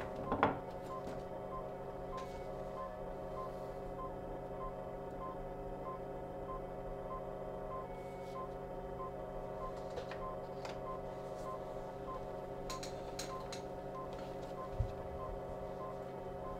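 Steady electronic hum of equipment with a short soft beep repeating about twice a second. A few light clicks are scattered through it, with a sharper knock about half a second in and a dull low thump near the end.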